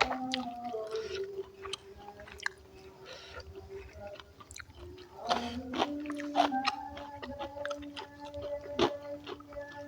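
A person chewing and smacking food, with irregular short wet clicks throughout, over soft background music.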